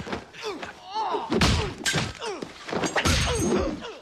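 Film fight-scene sound effects: a quick run of blows and thuds, the loudest about a second and a half and three seconds in.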